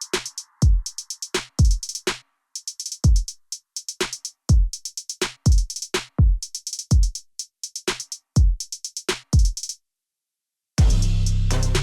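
Electronic background music: a drum-machine beat of kick drum and hi-hats. It drops out briefly near the end, then comes back fuller, with a steady bass line.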